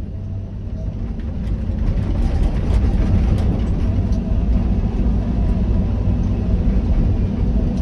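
Excavator's diesel engine running with a steady low drone that grows louder over the first few seconds.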